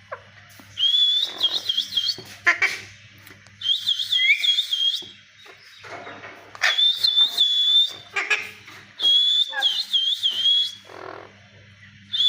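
Alexandrine parakeet calling: four high-pitched, warbling calls of about a second or more each, evenly spaced, with short sharp squawks between them and a fifth call starting near the end.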